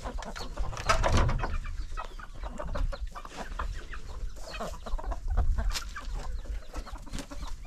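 Chickens clucking in a run of short, closely spaced calls, with a louder low bump about a second in.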